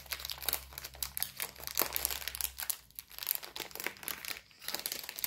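Plastic packaging crinkling and crackling as it is handled and opened, in irregular crackles with short lulls about three seconds in and near the end.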